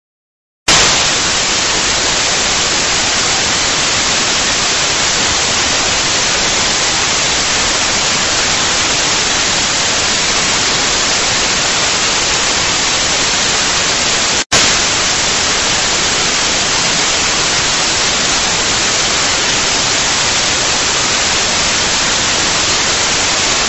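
Loud, steady static hiss, an even white-noise rush with no tones in it. It starts abruptly and drops out for an instant a little past halfway.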